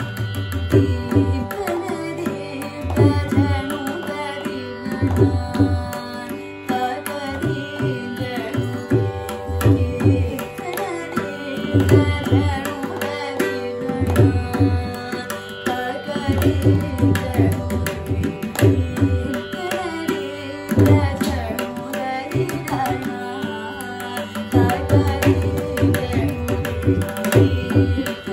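Carnatic vocal music with mridangam accompaniment: quick drum strokes and repeated deep booms from the drum's bass head under a singing voice and a steady drone.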